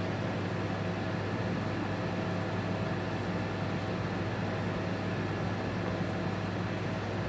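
Steady mechanical hum, with a low drone and a few faint steady tones above it over an even hiss, holding the same level throughout.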